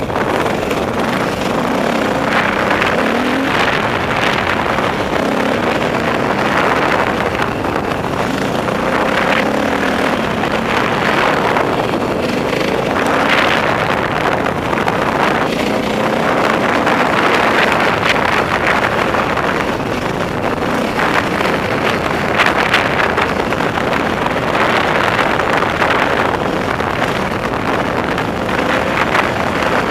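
Dirt bike engine running as the bike climbs a rough trail, its revs rising and falling, with scattered knocks and rattles from the rocky ground.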